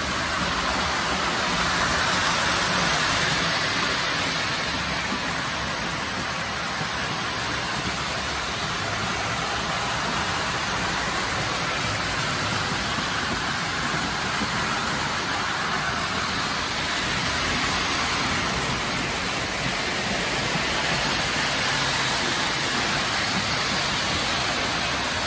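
Lionel O gauge model trains running on metal three-rail track, a steady even whirr that swells slightly now and then.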